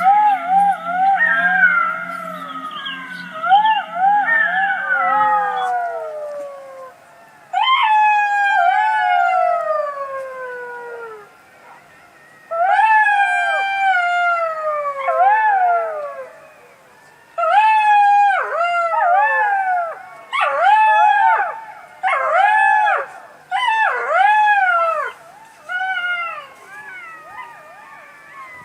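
Jackals howling in bouts. Several voices overlap in short wavering calls at first, then come long howls that fall in pitch, and then a run of quicker wails that rise and drop.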